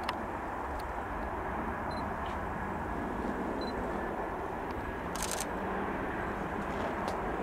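Twin-engine jet airliner on final approach with its gear down, its engines giving a steady rushing rumble at approach thrust. A few short clicks sound just after the start and again about five seconds in.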